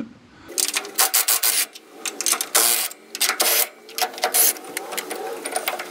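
Rusted U-bolt nuts on a Hilux's rear leaf-spring axle being worked loose with a wrench: a run of short rasping, squeaking strokes of metal on metal.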